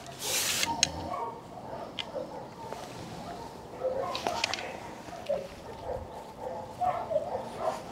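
Dogs at kennels barking repeatedly throughout, with two short rustles, one at the very start (the loudest sound) and one about four seconds in.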